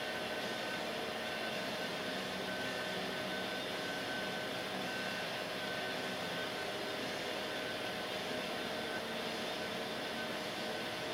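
Cooling fan whirring steadily, with faint whining tones in it; the higher whine fades out about nine seconds in.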